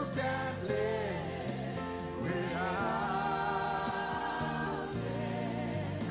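Gospel song sung by women's voices into microphones over an instrumental accompaniment with a steady beat. About two seconds in, the lead voice holds one long wavering note for nearly three seconds.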